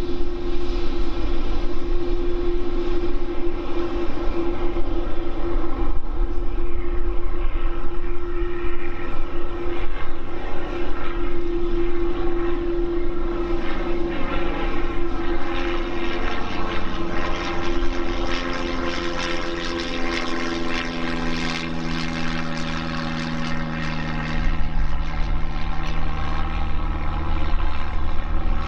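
Boeing 787-9 jet engines whining steadily as the airliner taxis. In the second half the engine tones slowly fall in pitch as it moves away, over a low rumble.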